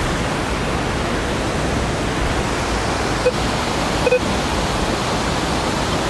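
Steady rushing noise of a waterfall, with two short faint beeps from a metal detector's speaker about three and four seconds in.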